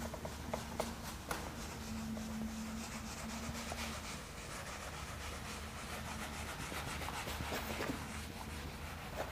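Handheld whiteboard eraser rubbing across a whiteboard in repeated wiping strokes, wiping off marker writing, with a few light taps in the first second or so.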